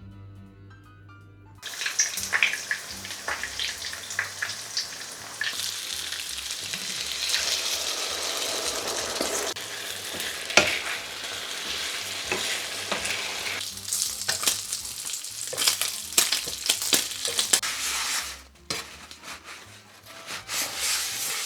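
Food frying in a hot pan, a steady sizzle full of small crackles and pops. It starts suddenly about a couple of seconds in and thins out to scattered pops near the end.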